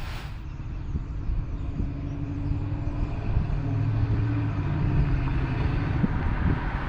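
1977 Chevrolet Malibu wagon's V8 running as the car drives up, a low steady engine note growing louder.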